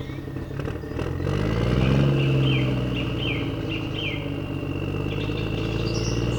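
A steady engine-like drone that swells and rises in pitch about a second in, then settles back to an even run. Birds chirp several times in the middle and again near the end.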